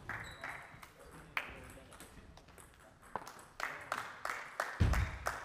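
Table tennis ball clicking off bats and table in a rally, with more clicks from a neighbouring table, all echoing in a sports hall. A heavier low thump near the end.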